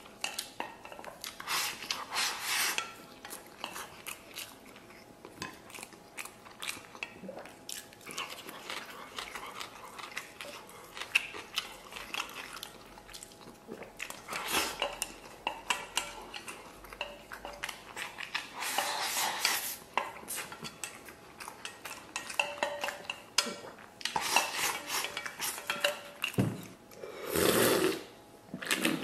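Wooden chopsticks clicking and scraping against a stainless steel bowl as food is shoveled into the mouth, with chewing. Near the end, swallows of a drink from a can.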